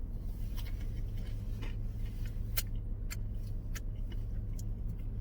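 A steady low hum, with a few faint, sharp clicks scattered through it.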